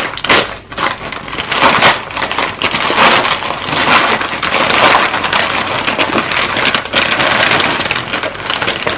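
Wrapping paper being torn and crumpled as a present is unwrapped: a dense, continuous crinkling with sharp rips.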